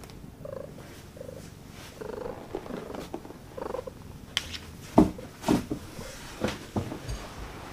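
Devon Rex cat purring as a steady low rumble. About halfway through come several knocks and thumps, the loudest about five seconds in, as the cat is lifted.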